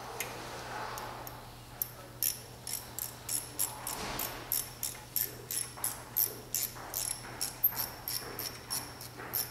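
Small hand ratchet with a T30 Torx bit clicking steadily, about three clicks a second, as it tightens the brake rotor's locating Torx screw.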